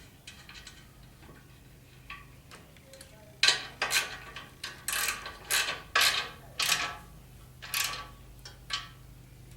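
Ratchet wrench being worked on a bolt: a string of about nine short ratcheting strokes, roughly two a second, starting about a third of the way in.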